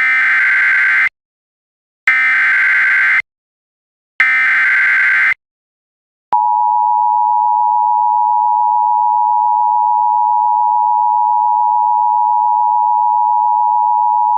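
Emergency Alert System alert tones. First come three SAME header data bursts, each a harsh warbling squawk lasting about a second, with a second's pause between them; these encode the alert. About six seconds in, the steady two-tone EAS attention signal starts and holds, announcing the emergency message that follows.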